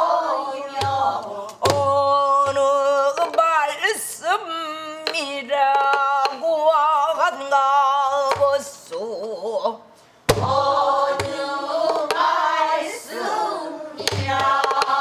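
Pansori singing: a woman's voice with wide, wavering vibrato, accompanied by a few sharp strokes on a buk barrel drum played with a stick and the palm, the clearest about 2 s in, just after 10 s, and near the end.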